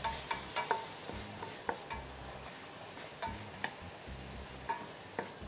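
A wooden spoon stirring a chopped-tomato and vegetable sauce in a stainless-steel pot over a steady sizzle. It gives irregular knocks against the pot, about two a second, some with a short metallic ring.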